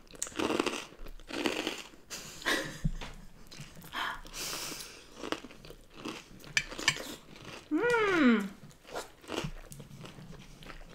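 Close-miked chewing and crunching of a mouthful of salad, in short irregular bites. About eight seconds in, a brief voiced sound falls in pitch, like an 'mm'.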